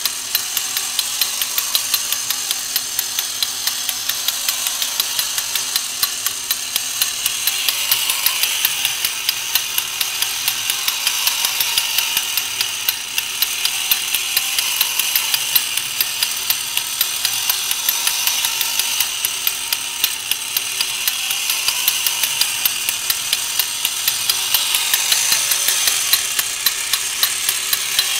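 Battery-operated 1970s Horikawa Piston Action Engine Robot toy running: its small electric motor and gear mechanism make a steady, fast, regular clicking.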